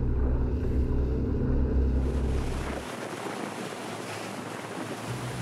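A pair of Suzuki 350 hp outboards droning as the RIB gets onto the plane, with water rushing along the hull and wind on the microphone. About three seconds in, the low engine drone drops away, leaving the rush of water and wind.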